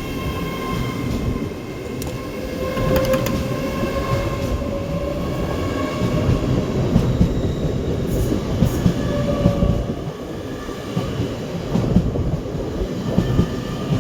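GWR Class 802 bi-mode multiple unit running through the station: a steady rumble of wheels on rail with repeated clatter over rail joints and a faint whine.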